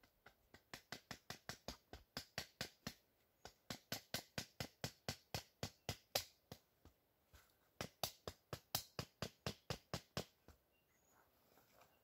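Wooden club knocking a stake into the ground: quick sharp knocks, about four or five a second, in three runs with short pauses between them.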